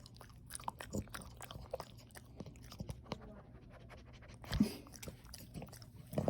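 A French Bulldog puppy chewing and mouthing, with many small clicks and a couple of louder knocks, the loudest about four and a half seconds in.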